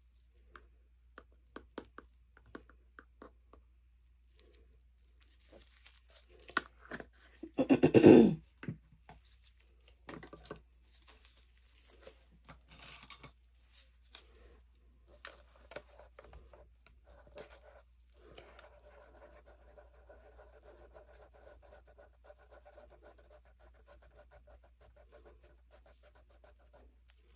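Light clicks and scrapes of small objects being handled, with one brief loud rasping burst about eight seconds in and a faint steady hum starting about eighteen seconds in.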